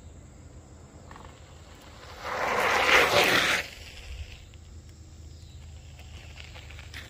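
Electric scooter passing close by, a brief rush of tyre and wind noise on the gritty road lasting about a second and a half.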